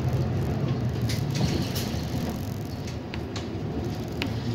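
City bus running, heard from inside the cabin near the front: a low engine hum that eases off after about a second and a half, with scattered light rattles and clicks from the bus interior.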